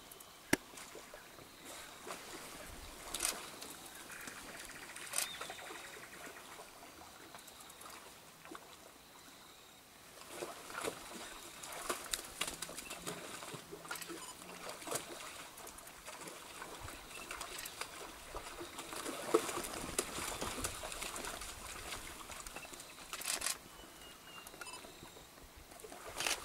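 Light water splashing and trickling with scattered soft clicks and knocks, from giant otters moving about in the shallows at the riverbank.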